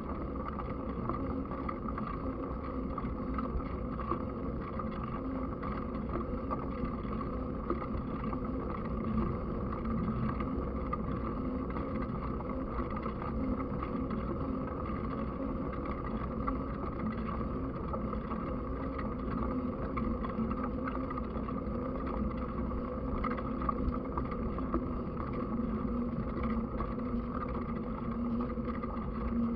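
Steady wind and rolling noise on the microphone of a camera carried along on a mountain bike while riding, an unbroken even rush with a constant low hum.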